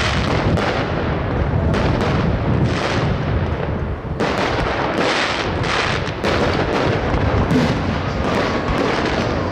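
Aerial firework shells bursting one after another in a dense, overlapping run of bangs.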